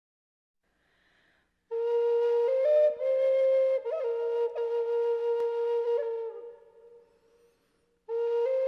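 Solo flute playing a slow melody of long held notes with small steps in pitch. It starts about two seconds in, dies away around seven seconds, and begins a new phrase just before the end.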